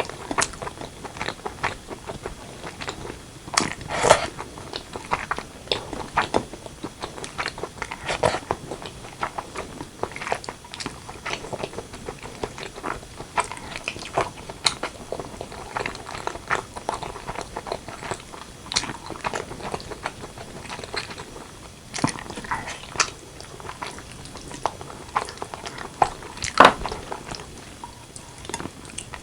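Close-miked chewing and biting of braised pork leg and white rice: a steady stream of irregular mouth clicks and chews. Louder single bites come about four seconds in and again near the end.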